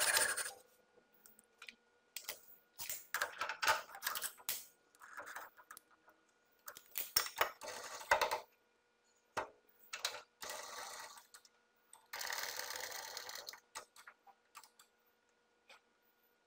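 A hacksaw stroke through a steel rod stops about half a second in. After that comes a run of irregular metallic clicks, clinks and short rattles of steel parts and hand tools being handled at the lathe chuck and tool post, with the lathe itself not running.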